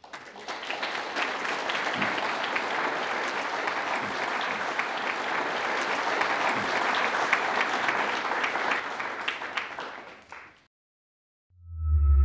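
Audience applauding, dying away after about ten seconds. Near the end a logo music sting with a deep bass note begins.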